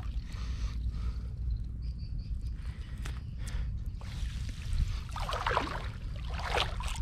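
Water splashing and trickling as a gill net is handled in the water, with a few small clicks and a steady low rumble underneath. The heaviest splashing comes a little past the middle and again near the end.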